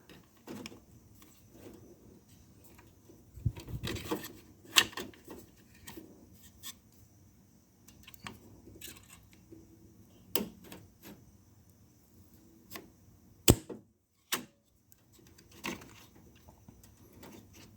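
Screwdriver prying and scraping at a stuck part of a car trunk latch, with scattered clicks and knocks of hard plastic and metal and one sharp click about two-thirds of the way through.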